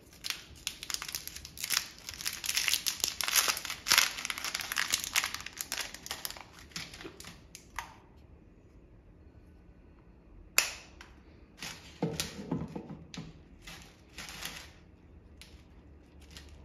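Thin clear plastic bag of candy beads crinkling and crackling as it is handled, busy for the first several seconds, then a single sharp plastic click and a few more short bouts of crinkling.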